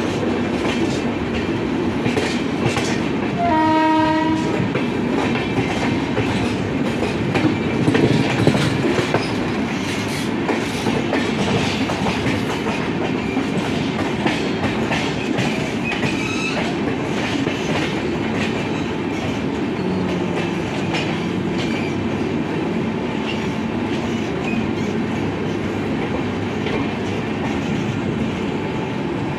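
Two passenger trains running side by side on parallel tracks, one overtaking the other: a steady rumble and rattle of coach wheels on the rails. A train horn sounds once for about a second, about four seconds in.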